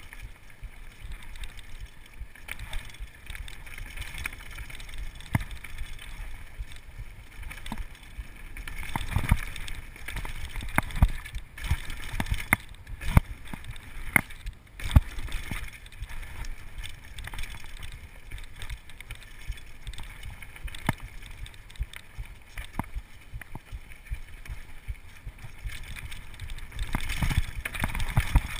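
Downhill mountain bike rattling over a rough trail, with a steady rumble from the tyres and frequent irregular sharp knocks and clatter, heard close through a chest-mounted camera.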